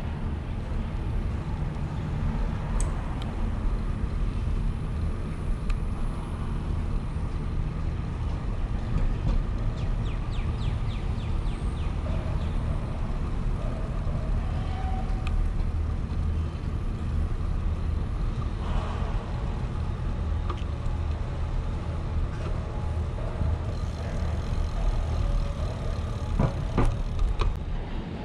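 Steady low rumble of a bicycle ride, wind and tyre noise, with a few sharp clicks near the end.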